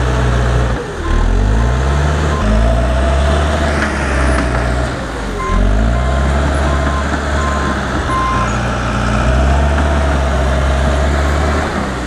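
John Deere 450H crawler dozer's diesel engine working hard as the blade pushes over a tree, the engine dipping and then revving back up about a second in and again around five and a half seconds in. A backup alarm beeps at times through the middle and near the end.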